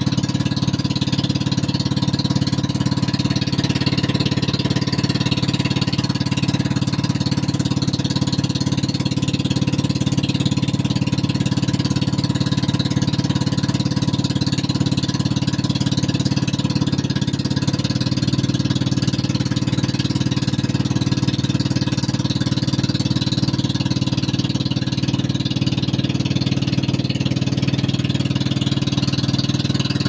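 Small boat's engine running steadily while the boat is under way, a continuous mechanical chugging that shifts slightly in pitch about halfway through.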